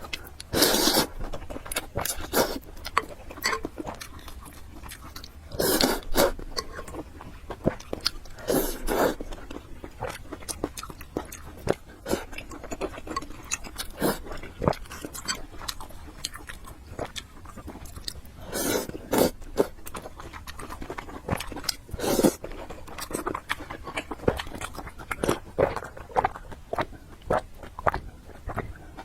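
Close-miked eating: a person chewing and biting food, with many small wet clicks and a handful of louder, longer bursts spread through.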